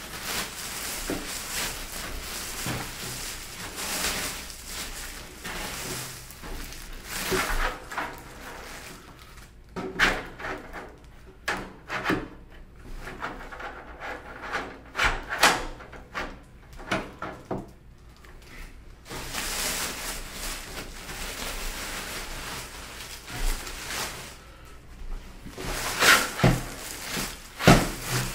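Clear plastic bag crinkling and rustling as it is pulled off a black NZXT Source 530 computer case, with several stretches of sharp knocks and thuds as the case is tipped and set down on a wooden table.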